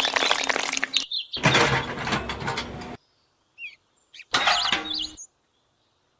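Short clips of a steady mechanical hum over a noisy background, each cut off abruptly, with short bird chirps between them.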